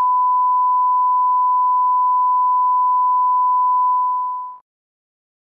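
Line-up test tone that accompanies broadcast colour bars: a single steady high-pitched beep, the reference signal for setting audio levels. It fades out about four and a half seconds in.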